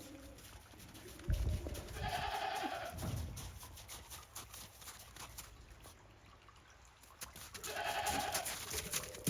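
Goat bleating twice, two short calls about six seconds apart, with a low thump just before the first.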